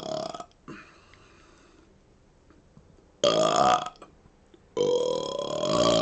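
A man burping on command: a long pitched burp fading out just after the start, a short burp about three seconds in, and another long pitched burp starting near the end.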